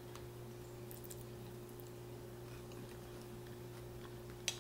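Faint eating sounds over a steady low hum: a few scattered clicks and taps as a fork works food on a glass plate, with one sharper click near the end.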